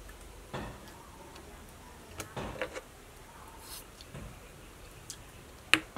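Eating sounds: a spoon and chewing, heard as scattered soft clicks and taps, with one sharp click near the end.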